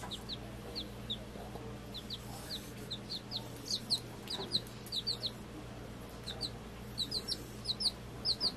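Week-old chicks peeping: short, high, falling peeps, scattered at first and coming thicker, often in pairs, in the second half. A steady low hum runs underneath.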